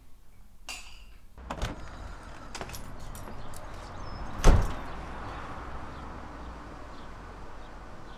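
A glass-panelled front door swinging shut with a loud bang about halfway through, after a few lighter clicks, over a steady outdoor background hiss. The background changes from quiet room tone to that hiss about a second and a half in.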